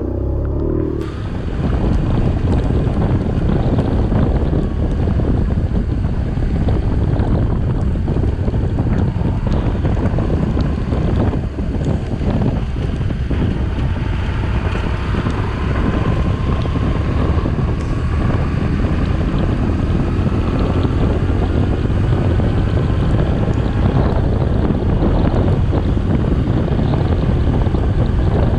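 BMW R1100RT boxer-twin motorcycle riding at road speed, its engine rumble mixed with heavy wind buffeting on the microphone and spray from the wet road. A faint rising engine note is heard midway.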